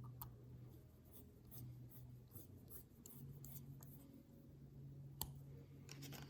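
Faint handling sounds at a workbench: light rubbing and small scattered clicks, with one sharper click about five seconds in, over a low steady hum.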